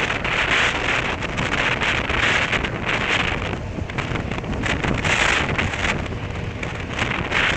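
Wind rushing over the microphone of a moving motorcycle, a steady rush that swells and eases, with road noise underneath.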